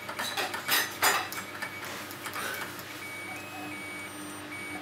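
Simple electronic beeping tune from the Znatok kit's music chip, played through a small DC motor in the 'singing electric motor' circuit. The motor turns only weakly. Two sharp clicks come about a second in.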